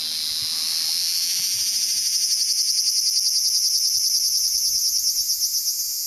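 Ryukyu large brown cicada (Graptopsaltria bimaculata) singing: a continuous high-pitched buzzing that takes on a fast, even pulsing about two seconds in, the pulsing fading near the end.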